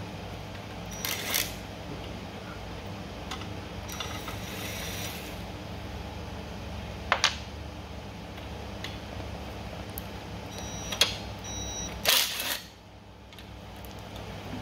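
Powerextra 18V cordless impact wrench on the bell housing bolts of a boat engine: short clicks and clunks of the socket on the bolts, then a brief loud rattle of the wrench about twelve seconds in. A steady low hum underneath stops just after that rattle.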